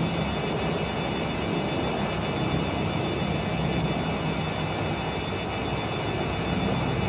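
A WW2-era warplane's engines droning steadily as it flies past at a distance.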